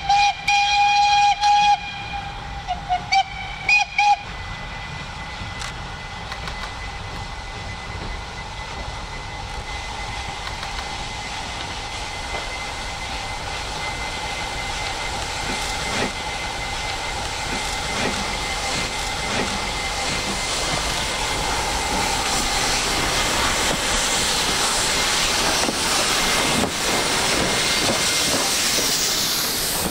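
Steam whistle of a Pakistan Railways HG/S class 2-8-0 steam locomotive: one long blast, then several short toots within the first four seconds. After that, steam hissing and the running noise of the locomotive grow steadily louder as it draws near.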